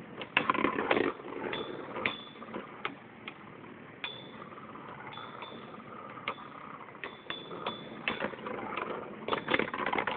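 Two Beyblade spinning tops whirring in a plastic stadium and clacking against each other, a cluster of sharp hits about a second in, scattered single clicks, then another flurry of hits near the end.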